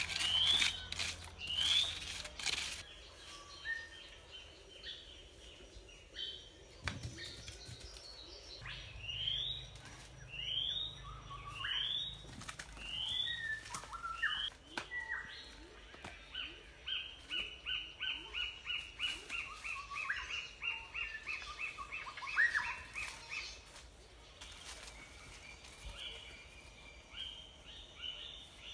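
Small birds calling: a short rising chirp repeated about once a second, then a long string of quick short notes, about three a second. A few knocks sound in the first couple of seconds.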